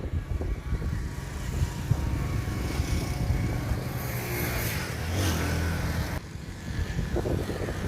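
A motor vehicle's engine running close by, loudest around the middle, with wind on the microphone; the sound changes abruptly about six seconds in.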